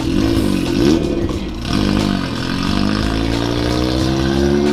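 An engine revving and accelerating. Its pitch swoops up and down twice in the first two seconds, then climbs steadily.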